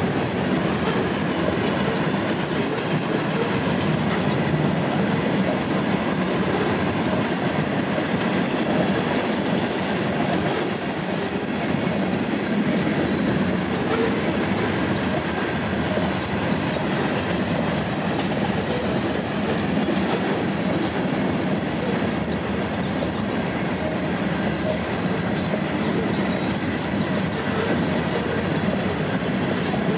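Freight train of covered hopper cars rolling past at a steady speed: a continuous, even rumble of steel wheels on the rails.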